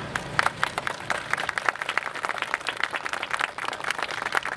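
Small audience applauding: a patter of separate hand claps.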